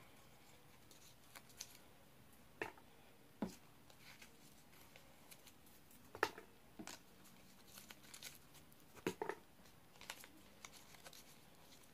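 Faint rustling and a scattering of light, sharp clicks as small folded paper slips are handled and folded by hand.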